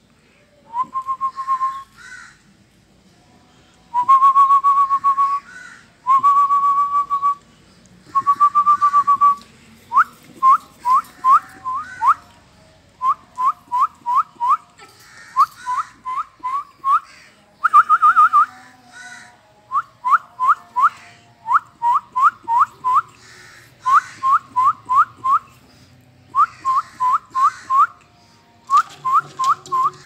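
Whistling near one pitch: four long held notes, then from about ten seconds in, short upward-flicking notes in quick runs of three to five, repeated many times.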